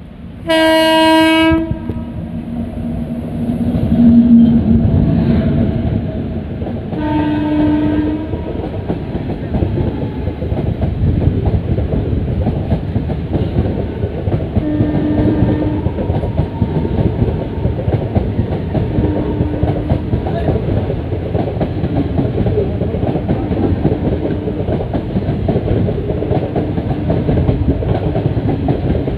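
Locomotive horn blaring about a second in and again, more briefly, at about seven seconds. Then a passenger train passes at speed, with a steady heavy rumble and the clickety-clack of coach wheels over the rail joints.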